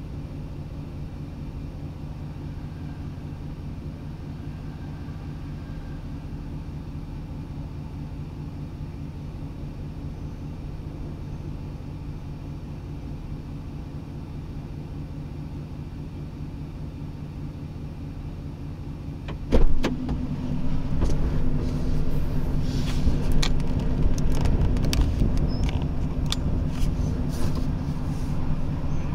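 A vehicle engine idling as a steady low hum. About two-thirds of the way in a sudden thump comes, and then strong gusty wind buffets the microphone with crackles and clicks over the continuing hum.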